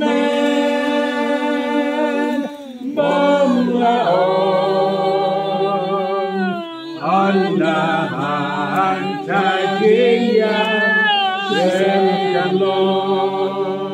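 A group of people singing a Khasi hymn, several voices holding long notes together, in phrases broken by short breaths about every three to four seconds.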